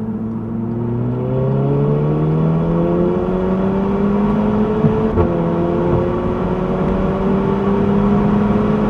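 VW Golf GTI Edition 35's four-cylinder engine and exhaust, resonator deleted, accelerating hard under load. The engine note climbs steadily, drops at a DSG gearbox upshift about five seconds in, then climbs again.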